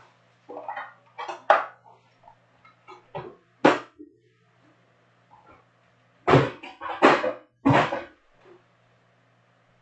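Cardboard boxes and packs of trading cards handled on a tabletop: a series of short knocks and thumps, with three louder ones close together about six to eight seconds in, over a faint steady low hum.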